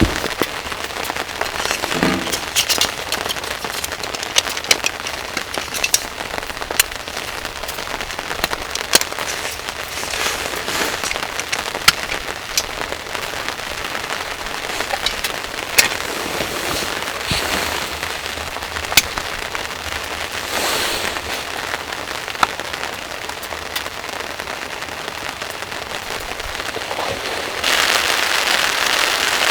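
Steady rain with frequent sharp taps of drops striking a surface. The rain grows louder about two seconds before the end.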